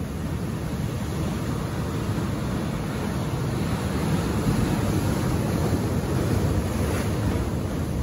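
Ocean waves crashing over shoreline rocks: a steady rushing wash of surf and foam that swells as a wave breaks about halfway through.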